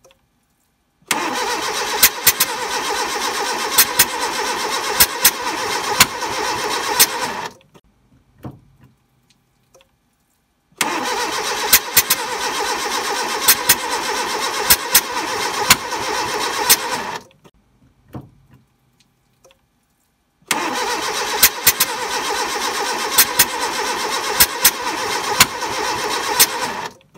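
Fiat car engine cranked on the starter three times, about six seconds each, without catching, with repeated sharp pops over the cranking: backfiring through the carburettor, which the owner sends in as his starting fault after an engine swap.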